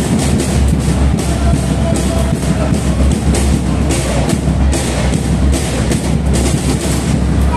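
Loud music with a heavy, pounding drum beat and strong bass.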